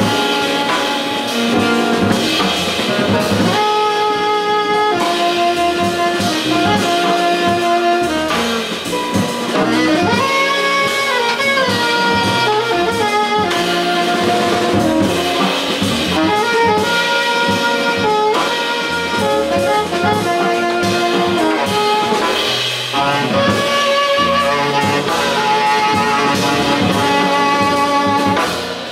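Live jazz quartet: an alto saxophone plays a moving melodic line over drum kit and upright double bass.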